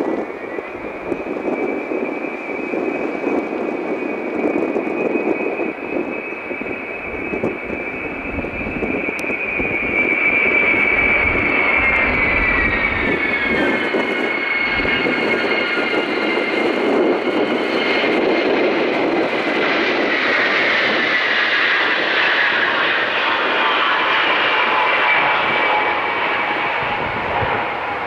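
Ilyushin Il-76 four-engined jet freighter on final approach and landing: a steady jet roar with a high whine of several tones, growing louder about ten seconds in, then the whine falls in pitch as the aircraft passes by and runs down the runway.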